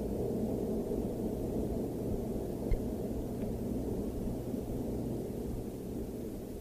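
Low, steady rumble of a distant Norfolk & Western steam passenger train on a 1950s field tape recording, with one short click near the middle. The rumble grows slightly fainter near the end.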